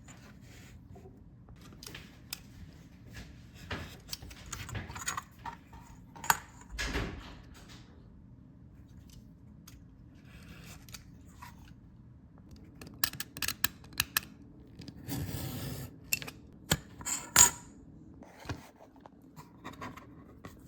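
Leatherworking handling sounds: scattered clicks and taps of hand tools being picked up and set down, with short scrapes and a scraping or cutting sound lasting about a second, around three-quarters of the way through.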